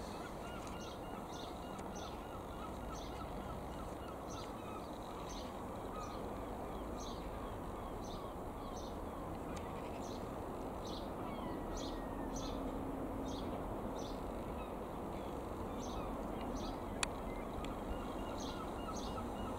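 Steady distant drone of a Mooney M20K single-engine light aircraft flying overhead, swelling slightly as it passes, with small birds chirping repeatedly over it. A sharp click comes near the end.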